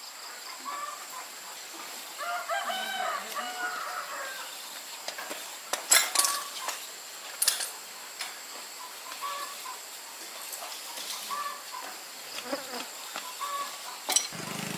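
Chickens clucking against a steady high insect whine, with a few sharp metallic clinks of tools being handled. Just before the end, a motorbike engine starts and runs at idle.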